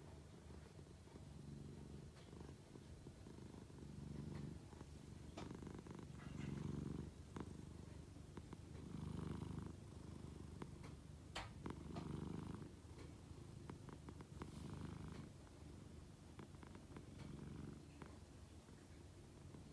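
A cat snoring softly, a low rasping sound with each breath, recurring about every two to three seconds, with a few faint clicks in between.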